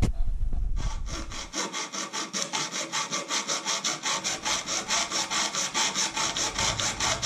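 Hand hacksaw cutting through a thin gold-coloured metal profile strip held in spring clamps. The sawing runs in steady, even rasping strokes, about five a second, starting just under a second in.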